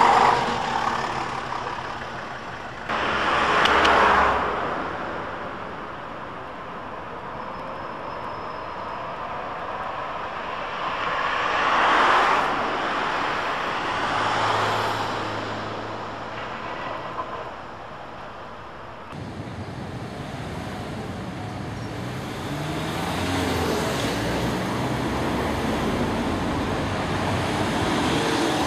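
Street traffic: a diesel bus pulling away at the start, then vehicles passing one after another while DT8 light rail trams approach on street track. The background changes abruptly twice, about 3 and 19 seconds in.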